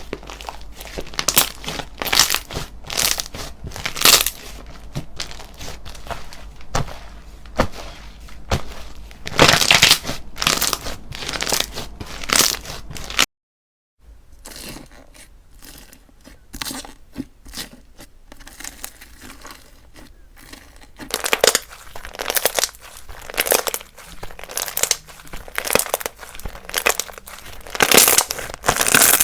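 Slime being squished and pressed by hand, a dense run of crackling pops and crinkles. The sound breaks off into a moment of silence about halfway through, then resumes.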